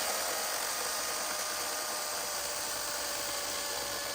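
Chainsaw running at a steady speed: an even hiss with a thin, constant whine.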